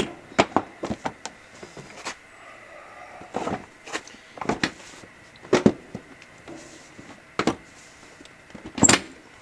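Irregular knocks, clicks and clunks of parts and tools being handled, about a dozen separate hits, the loudest one just before the end.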